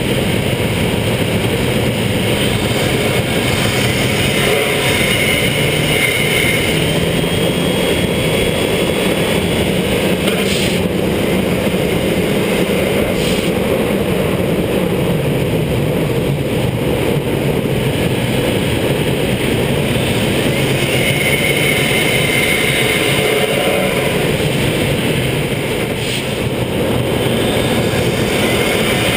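Fiat Punto GT's turbocharged 1.4 four-cylinder engine driving and accelerating, with a faint rising turbo whistle at times over wind buffeting on the microphone and tyre noise on wet asphalt.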